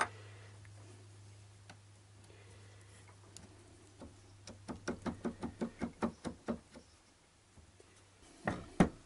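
Light plastic-on-metal clicks, about three or four a second for a couple of seconds, then two sharper knocks near the end, as a broken black plastic part is worked by hand inside an alternator's end housing. A faint steady low hum sits underneath for most of it.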